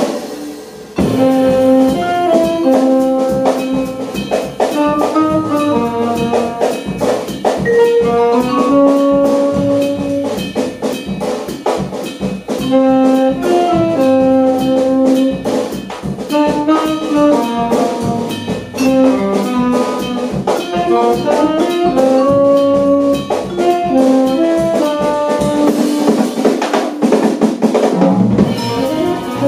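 Jazz quintet playing live: saxophone, accordion, vibraphone, double bass and drum kit, with a busy melody over constant drum and cymbal strokes. After a brief dip the whole band comes in together about a second in, and the bass drops out for a moment near the end.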